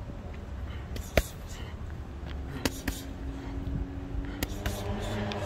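Gloved hands working on steel parallel bars during dips: a few sharp clicks, the loudest about a second in, over a low rumble. A steady low hum comes in about halfway through.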